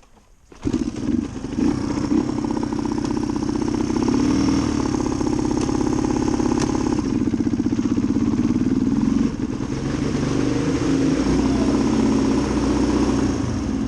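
1990 Suzuki DR250's single-cylinder four-stroke engine running, its pitch rising and falling several times with the throttle, with a short drop just after the middle.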